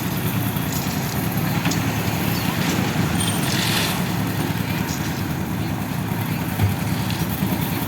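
An engine running steadily at an even speed, with a few faint knocks and voices over it.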